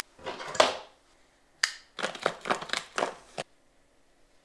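Workshop handling noises: a clack about half a second in, a single click, then a quick run of sharp crinkling clicks from a thin plastic PET bottle being handled.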